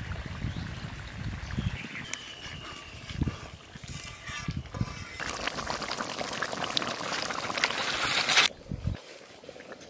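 Thick pork curry bubbling in a wok over a wood fire: a steady fizzing, spattering hiss in the second half that cuts off abruptly shortly before the end.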